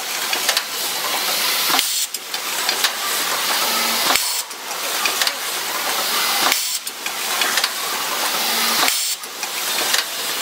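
Copper pipe automatic assembly machine running: a steady high hissing mechanical noise that breaks off briefly about every two seconds, with a short low hum a few times.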